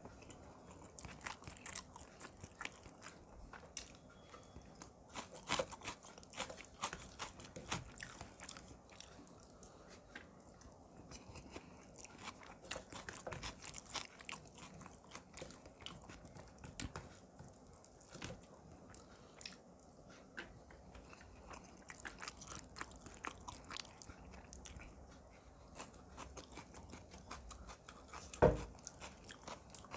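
Close-miked eating: steady chewing and crunching with many small mouth clicks. A single louder knock about 28 seconds in.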